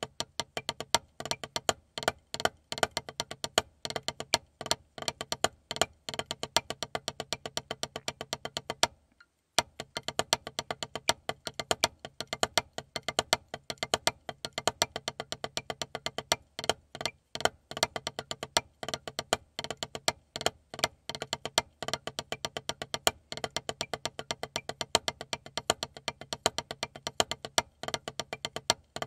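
Wooden drumsticks on a Vater rubber practice pad, playing a snare-drum rudimental solo: a fast stream of strokes with regular louder accents. The playing stops briefly about nine seconds in, then carries on.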